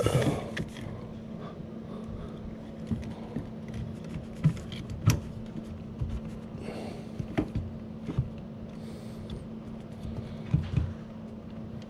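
Scattered light clicks and knocks of a dishwasher's plastic wash motor and circulation pump assembly being handled and twisted into its sump housing, over a steady hum.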